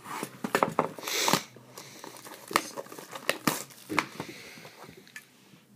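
Clear plastic shrink wrap on a trading-card box being slit with a utility knife and peeled off. It crinkles and crackles throughout, with a louder tearing sound about a second in.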